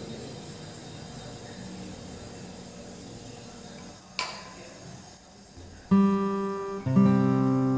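Strummed guitar music starts about six seconds in, with a second chord about a second later. Before it there is only faint room noise, broken once by a single sharp click about four seconds in.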